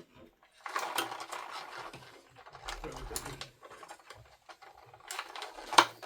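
Scissors snipping through packing tape and cardboard as a box is opened, with irregular rustling of the packaging and a sharp click near the end.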